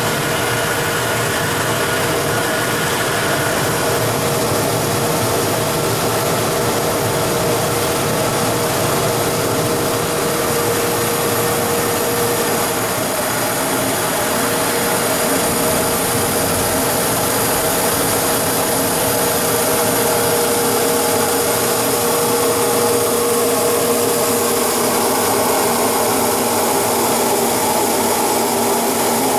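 YDN-85 plastic film recycling and pelletizing line running steadily: a constant machine noise from its motors and blower, with a held hum through it.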